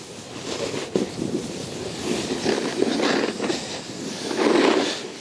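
Snowboard sliding and scraping over snow, a rushing rumble that swells and fades several times, with a sharp click about a second in.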